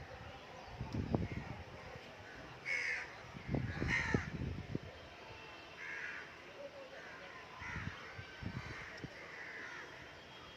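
Harsh bird calls, about five in all, spaced a second or two apart, over low rumbling surges.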